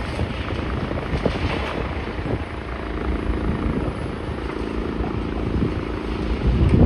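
A heavy engine running with a low rumble and scattered knocks; a steady hum comes in about two and a half seconds in.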